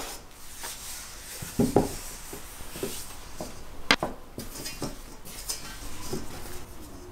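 A round metal baking tray being handled as thin sheets of phyllo pastry are laid in and smoothed down: scattered light knocks and clinks of the metal, the sharpest about four seconds in, with soft rustling of the pastry sheets.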